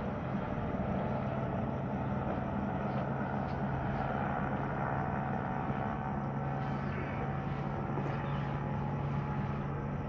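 Helicopter droning steadily in the night air, a constant low hum with no change in level.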